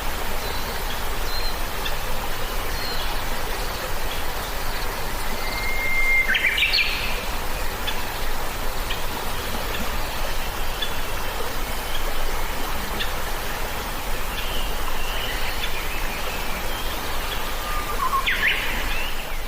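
Birds chirping and calling over a steady outdoor hiss. About six seconds in, one bird holds a clear whistled note and then breaks into a quick burst of calls; another burst of calls comes near the end.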